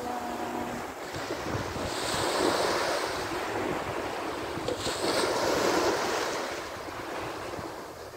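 Sea waves washing up onto a sandy beach, the surf swelling louder about two seconds in and again around five seconds, with wind buffeting the microphone.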